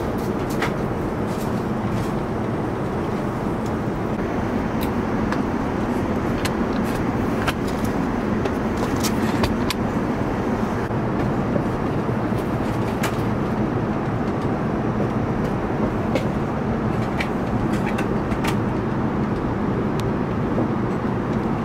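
Steady cabin noise inside an Airbus A350-900 airliner, an even rushing drone of air and engines, with scattered light clicks throughout.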